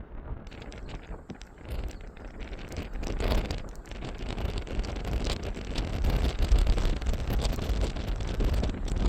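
Strong wind buffeting the microphone in gusts, a deep rumbling noise that grows louder about three seconds in.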